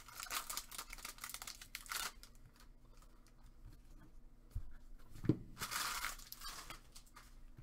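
Foil trading-card pack being torn open and its wrapper crinkled, with two soft knocks a little after halfway and another burst of crinkling near the end.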